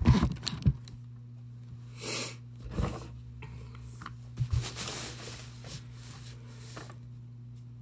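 Handling noise on a wooden tabletop: knocks and short scrapes as a paper plate and painting supplies are moved and set down, with the loudest knocks near the start and another pair about four and a half seconds in. A steady low hum runs underneath.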